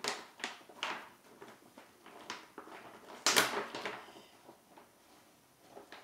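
A plastic packet and paper rustling and crinkling in the hands: a few short rustles, then the loudest crinkle a little over three seconds in.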